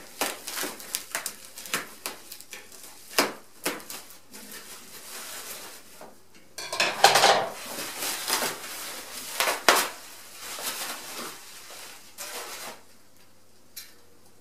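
Plastic wrapping crinkling and rustling as it is pulled and torn off a bicycle wheel, with scattered clicks and light knocks of the wheel and packing. The handling noise stops near the end.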